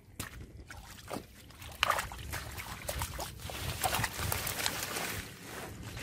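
Irregular splashing and sloshing of shallow muddy water as hands and bare feet work through the mud and water hyacinth, louder and busier from about two seconds in.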